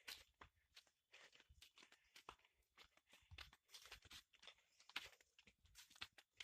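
Faint, irregular crunching and rustling, like footsteps on dry ground and vegetation.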